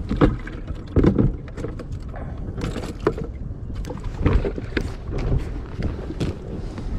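Handling noise from a handheld camera being moved about on a boat deck: irregular bumps and knocks over a low rumble.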